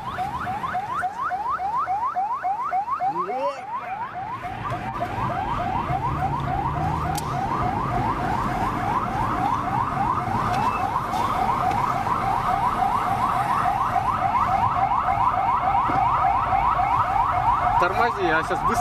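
Electronic siren on a fast yelp: rising sweeps repeating four or five times a second, unchanging throughout. A low rumble runs underneath it.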